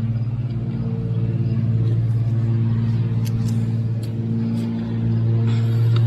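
An engine running at a steady idle, an even low hum, with a few faint clicks over it.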